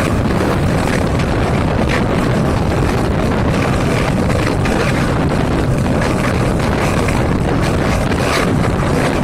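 Diesel train engine running steadily under way, with wind on the microphone.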